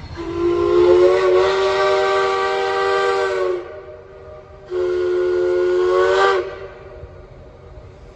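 Steam whistle of steam locomotive Southern Railway 154 blown twice: a long blast of about three seconds, then after a short gap a second blast of nearly two seconds, each sounding several tones at once over a hiss of steam.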